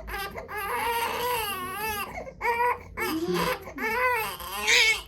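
Baby crying: a run of wavering wails with short breaths between them, the last one loudest.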